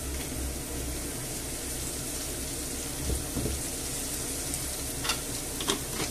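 Chopped onion, garlic and red pepper frying gently in olive oil in a pan, a steady sizzle, with a few faint light taps about three seconds in and again about five seconds in.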